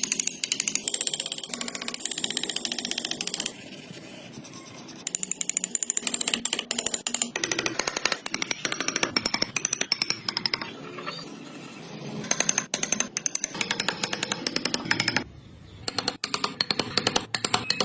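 A power tool working wood with a fast, rattling stream of rapid strokes. It eases off for a couple of seconds early on and cuts out briefly near the end.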